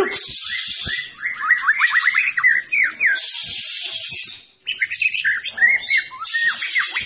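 White-rumped shama (Medan murai batu) singing hard, with rapid runs of short falling whistles alternating with long harsh, hissing bursts and a short pause about four and a half seconds in. The harsh 'batuk-batuk' (coughing) notes mark a bird that is worked up and in full song.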